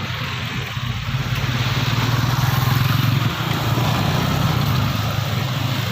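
A vehicle engine running close by, a deep steady hum that grows louder over the first two or three seconds and then holds.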